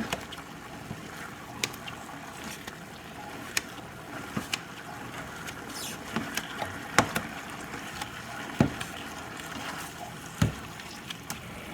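Chicken frying in a pan with a steady sizzle, and scattered sharp knocks, about one every second or two, as a meat chopper tool strikes the pan while breaking up the chicken.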